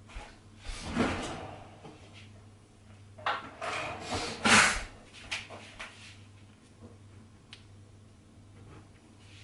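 Kitchen drawer being pulled open and pushed shut, with several knocks and rattles, the loudest about four and a half seconds in, over a low steady hum.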